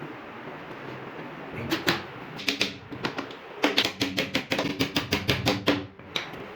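A rapid series of sharp knocks on wood: a few spaced strikes, then a quicker run of about five a second that stops shortly before the end.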